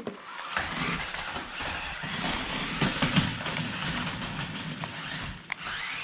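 Toy remote-control stunt cars running, their small electric motors whirring steadily, with a few light knocks around the middle and one near the end.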